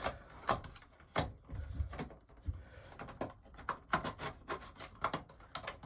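A First Alert 9120B smoke alarm being twisted onto its ceiling mounting bracket: rubbing and scraping with a string of irregular sharp clicks as the housing turns into place.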